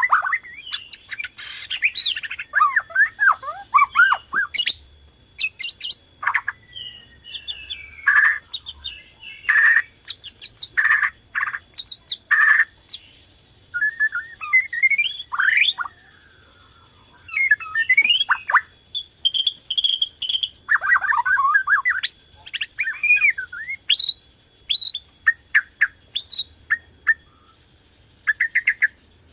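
White-rumped shama of the Bornean type (murai batu Borneo) in full song ('gacor'): a varied run of whistled and gliding notes, quick repeated notes and harsher calls, in short phrases with brief pauses between them.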